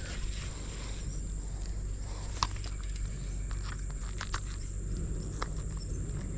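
A steady high-pitched insect drone, with scattered faint clicks and rustles.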